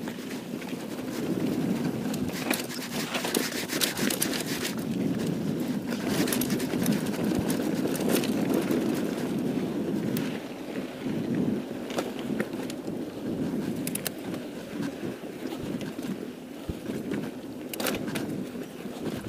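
Mountain bike rolling fast down a dirt forest trail: a steady rumble of tyres over dirt and leaves, with frequent sharp clicks and knocks as the bike rattles over stones and bumps.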